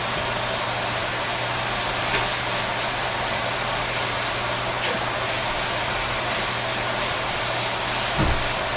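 Steady hiss of background noise with a constant low hum underneath and a few faint small clicks.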